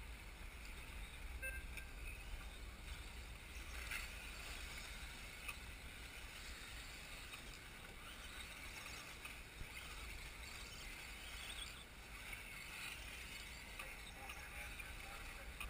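Wind rumbling on the microphone over the faint high whir of 1/10 scale brushless electric off-road buggies racing around the track.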